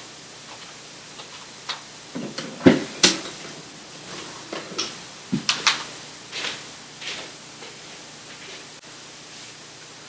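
A person moving about a small room: scattered light knocks and clicks, loudest about three seconds in, over a steady hiss of room noise, then only the hiss for the last few seconds.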